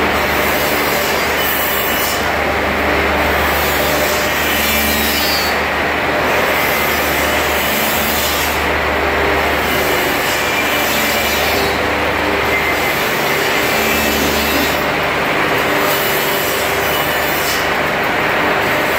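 Industrial finger-joint line running: electric motors, chain conveyors and woodworking cutters make a loud, steady machine noise with a constant low hum. A hissing, wood-cutting sound in the treble swells and fades every couple of seconds.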